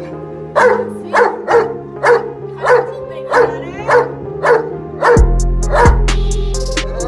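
A dog barking repeatedly, sharp single barks about half a second apart, over background music that turns heavier with a deep bass beat about five seconds in.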